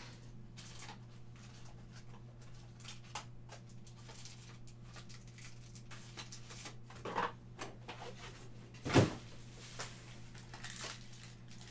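Quiet handling noises at a table: scattered light clicks and rustles, with one louder knock about nine seconds in, over a steady low hum.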